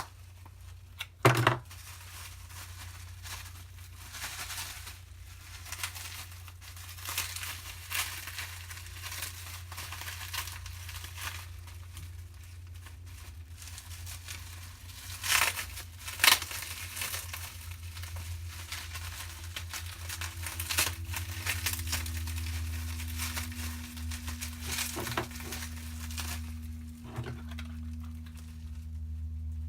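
Parcel packaging being crinkled and torn open by hand: irregular rustling and crumpling, with a few sharper tearing snaps, one about a second in and two near the middle. A steady low hum lies underneath.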